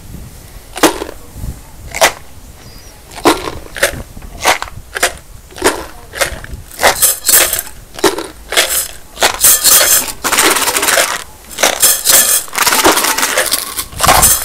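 Homemade shakers (tins, jars and plastic tubs filled with nails, screws, pebbles, rice and other small dry bits) rattling in rhythm. Single sharp shakes come about once a second at first. Several shakers are layered in over one another, so the rattling grows faster and thicker and becomes an almost continuous dense rattle near the end.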